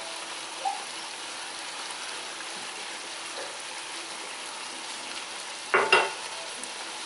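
Ground turkey and tomato spaghetti sauce sizzling steadily in a pan on medium-high heat. Just before the end, two sharp clinks.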